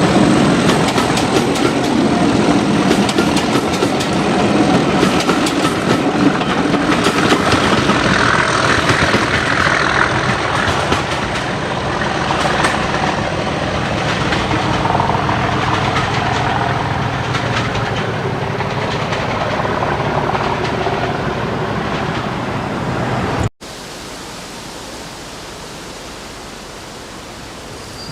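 Preserved diesel locomotive working a train past at close range, with engine noise and clattering wheels, loudest early on and slowly fading as it moves away. About 23 seconds in it cuts off abruptly to a steady, much quieter hiss.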